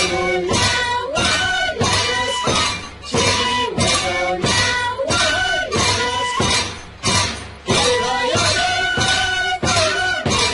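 Andean carnival music from Ayacucho played by a band: a steady rhythm of sharp, bright strokes under held notes, with brief breaks between phrases.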